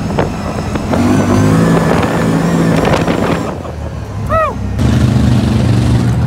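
Engine of a side-by-side UTV running as it drives along a gravel lane, its pitch climbing as it accelerates. About three-quarters of the way through, the sound switches to a lower, steady engine drone from the lifted trucks at a mud pit, just after a brief rising-and-falling tone.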